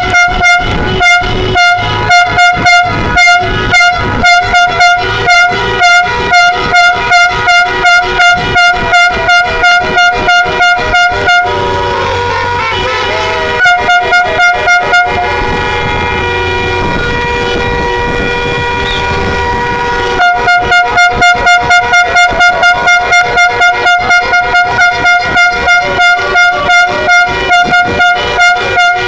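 Car horns honking in a celebratory convoy. One horn beeps rapidly, about three toots a second, over several others held as steady tones at different pitches. The rapid beeping breaks off for several seconds about midway, leaving the held horns, then starts again.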